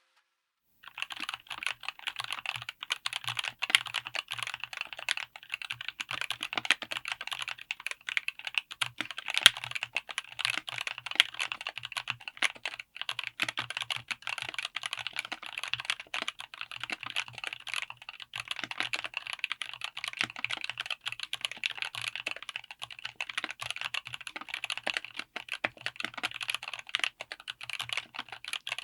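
Fast, continuous typing on a mechanical keyboard with Outemu Cream Pink linear switches, an FR4 plate and an aluminium case, starting about a second in: a dense run of key strokes and bottom-outs.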